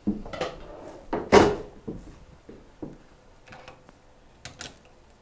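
Cookware and utensils being handled: a run of scattered knocks and clunks, the loudest about a second and a half in, thinning out toward the end.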